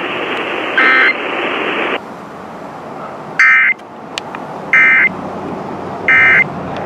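Emergency Alert System digital data bursts: four short two-tone bursts, the last three about a second and a half apart, as in the end-of-message code sent after a warning broadcast. Radio static hisses underneath and drops lower about two seconds in.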